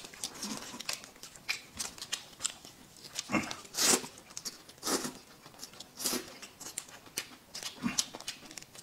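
Noodles being slurped and chewed, with a few louder slurps about three and a half seconds in and again later. Small plastic snack packets crinkle and click as they are peeled open.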